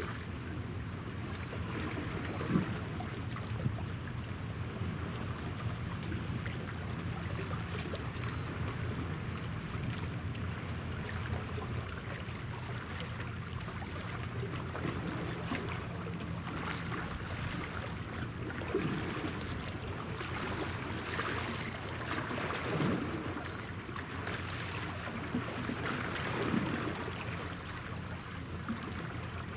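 Steady low hum of distant ship engines carrying across the water, with water lapping and splashing at the shore now and then.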